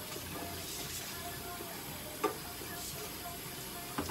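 A cat's fur being brushed: soft brush strokes over a steady hiss, with one short sharp sound a little past halfway.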